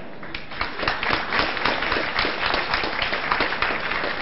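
Audience applauding: many hands clapping, breaking out about half a second in and holding on.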